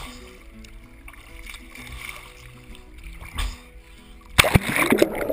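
Quiet background music with held notes, then about four seconds in, loud splashing and sloshing as water washes over a camera held at the water surface and dips under.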